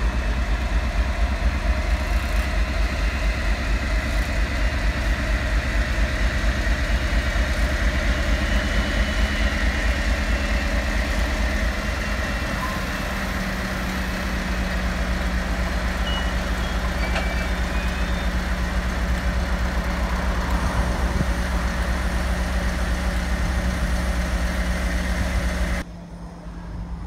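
British Rail Class 56 diesel locomotive's Ruston-Paxman V16 engine running close by with a deep, rapid beat, its note stepping up slightly about halfway through. The sound drops suddenly near the end.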